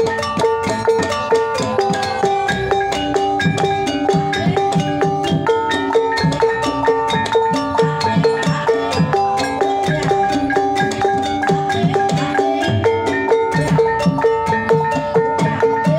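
Javanese gamelan playing a Banyumasan tayub piece: bronze gong-chimes and metallophones ring in steady pitched notes over quick, continuous kendang hand-drum strokes.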